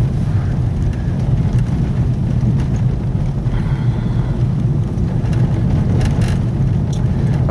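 A car's engine and tyres give a steady low drone, heard from inside the cabin of the moving car.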